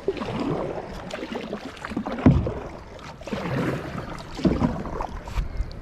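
Kayak paddle strokes swishing and splashing through the water, roughly one stroke a second, with a few sharp knocks.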